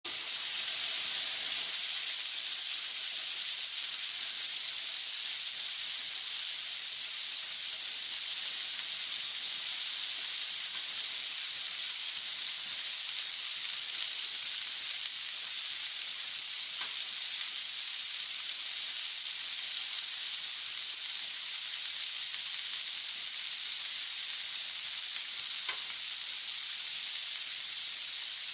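Food frying in hot oil in a pan, a steady high sizzle with a couple of faint pops.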